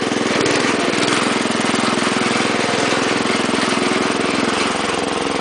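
1961 Wheel Horse garden tractor's small engine running steadily as the tractor drives over ice.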